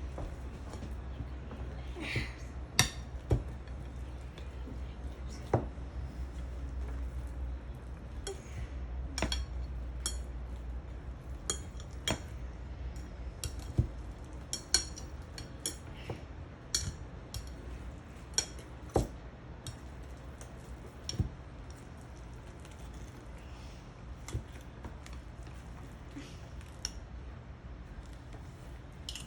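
A kitchen utensil clinking and knocking against a bowl at irregular intervals as avocado is mashed for guacamole.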